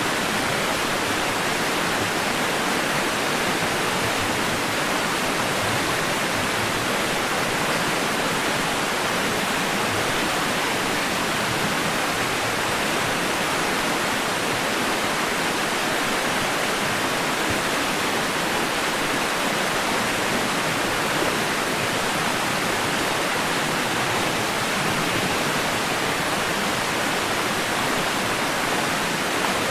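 Steady white noise, an even hiss that does not change.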